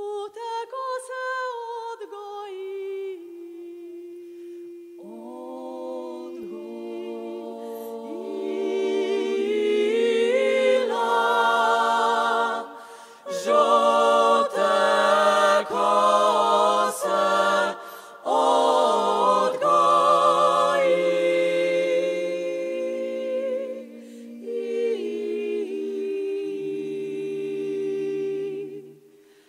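Women's klapa ensemble of six singing a cappella in Dalmatian close harmony. One voice opens alone, the others join about five seconds in, and the chords swell to their loudest in the middle before softening again.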